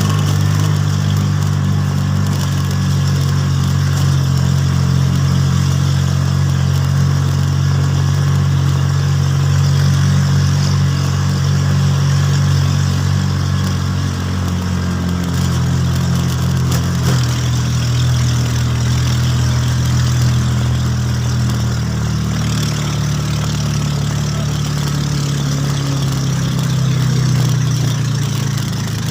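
A vehicle engine running steadily, its pitch shifting a few times about halfway through and again later.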